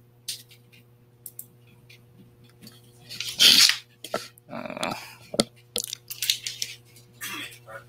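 Steady low electrical hum on an open microphone, with scattered clicks and short rustling, breath-like noises; the loudest comes about three and a half seconds in.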